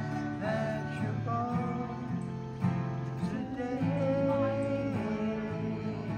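Several acoustic guitars strummed together in a casual jam, with voices singing a held, wavering melody over them.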